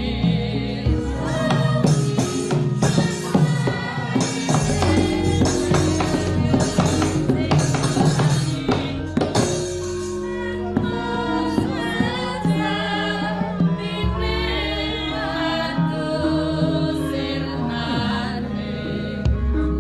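Javanese gamelan music accompanying a wayang kulit shadow-puppet show, with many instruments and sung voices. A busy run of struck notes fills the first half; after that come held tones with singing over them.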